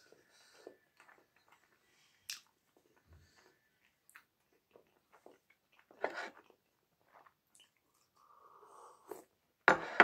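Close-up mouth sounds of a person eating soft sugared raspberry vareniki by hand: quiet chewing with small wet clicks and lip smacks, a short louder smack about six seconds in and a sharper, louder one just before the end.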